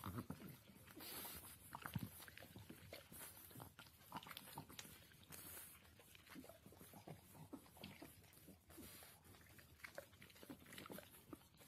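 Faint wet licking and mouth smacks from a large dog licking a small pug-type dog's face: short, irregular smacks all through.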